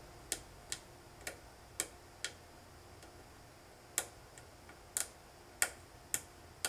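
Fingernail scraping and picking at corroded solder pads on a computer logic board, giving about ten short, sharp clicks at irregular intervals.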